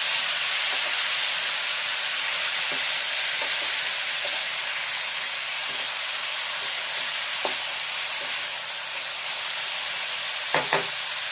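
Grated onion and mustard seeds frying in hot oil in a metal pan, sizzling steadily as the onion browns. A spatula stirs through it, making scattered light scrapes and clicks, with two sharper knocks against the pan near the end.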